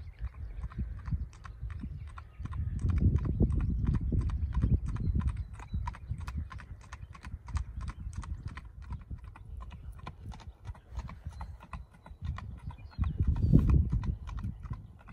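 A ridden horse's hooves clip-clopping at a steady, even rhythm on a paved road. Patches of low rumble come in about three seconds in and again near the end.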